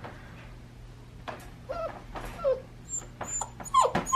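Chocolate labradoodle puppy whining: four or five short, high whimpers that slide in pitch, starting about a second and a half in. The puppy is unhappy at being shut in its crate for bed.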